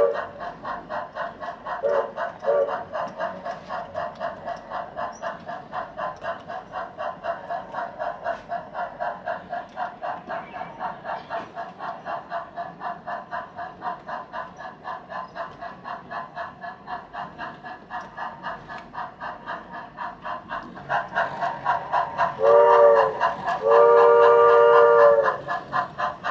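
Model steam locomotive sound: steady chuffing at about five beats a second, with two short whistle toots about two seconds in. Near the end comes a short steam-whistle blast, then a long one.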